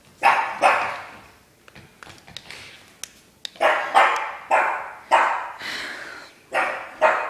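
Pug barking: two quick barks, a pause of about three seconds, then a run of about five more barks.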